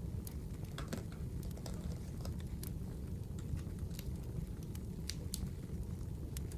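Wood fire burning: irregular sharp crackles and pops over a steady low rumble.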